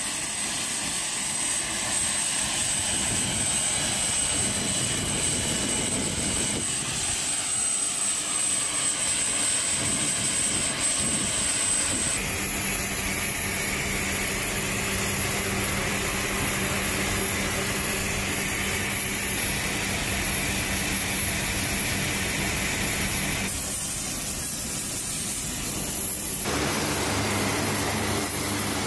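Lockheed C-130J Super Hercules' four Rolls-Royce AE 2100 turboprop engines running on the ground, a steady propeller drone with a high whine. The sound changes abruptly a few times as the shots switch between outside the aircraft and inside the cockpit.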